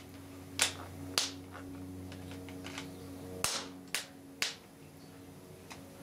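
Steady low electrical hum from a capacitor bank charging, broken by about five sharp snaps.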